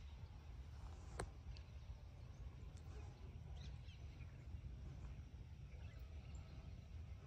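Faint, scattered bird chirps over a low, steady rumble, with one sharp click about a second in.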